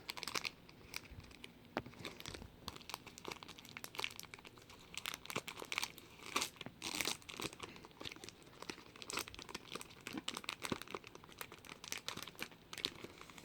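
Foil wrapper of a Pokémon trading card booster pack crinkling and crackling as it is slowly and carefully torn open by hand, in many small irregular crackles.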